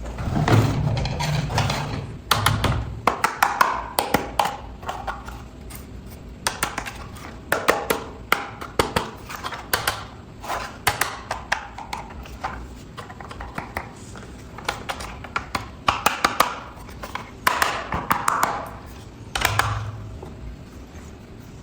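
Close-up handling of a toy's packaging: an irregular string of taps, clicks and knocks with short crinkling bursts.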